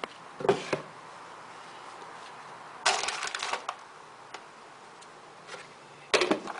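Clicks, knocks and plastic rattling as a plastic storage tub and its lid are handled and set down, with a denser clattering burst about three seconds in and a short one near the end.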